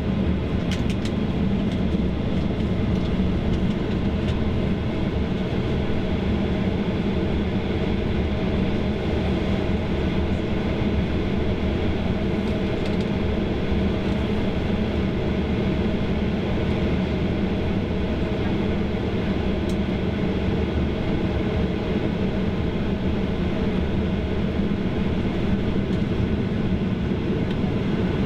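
Steady cabin noise inside a Boeing 737-800 taxiing: its CFM56 engines running at low taxi power under the rush of cabin air, with a low hum that holds steady throughout.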